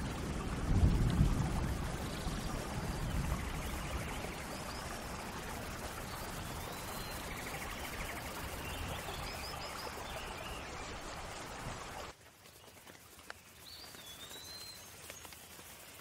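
Steady rain falling, with a low rumble in the first couple of seconds and birds chirping now and then. About twelve seconds in the rain sound cuts off suddenly, leaving fainter rain and a few bird calls.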